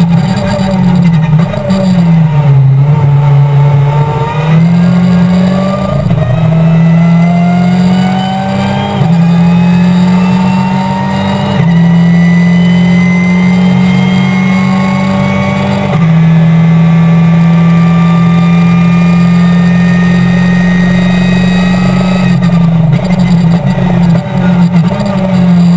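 Racing car's engine heard from inside the cockpit, pulling hard at high revs: the pitch climbs and drops back at upshifts about 6, 9, 11 and 16 seconds in, holds high on a long pull, then jumps up and down near the end as the driver brakes and downshifts.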